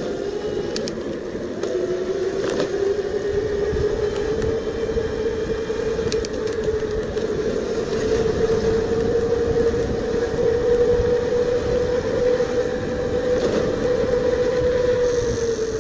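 Bafang BBS02 750 W mid-drive motor whining under power on a mountain bike, its pitch climbing slowly as the bike speeds up and dropping near the end. Under it runs a steady rush of wind and tyre noise, with a few light clicks.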